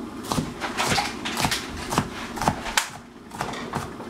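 Kitchen knife chopping capsicum on a cutting board: sharp knocks about twice a second, with a short pause a little past halfway.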